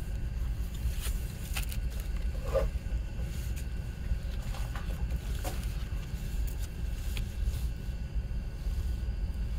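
Hands handling a cardboard album package and its photo pages, with scattered soft paper rustles and light taps as the panels are unfolded and turned, over a steady low rumble.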